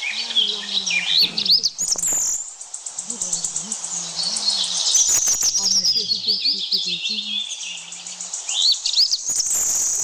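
Several birds chirping and singing over a steady, pulsing high insect buzz, with low murmured human voices underneath.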